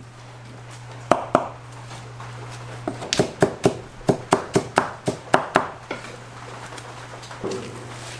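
Kitchen knife chopping vegetables on a plastic cutting board: two strokes about a second in, then a steady run of about a dozen strokes, roughly four a second, from about three to six seconds in. A steady low hum runs underneath.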